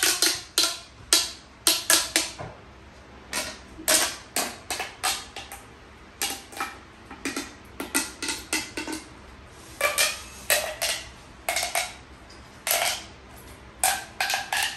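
Mini plastic pop tube being stretched and bent, its ridged segments snapping in a string of sharp pops, irregularly spaced with some in quick runs of two or three.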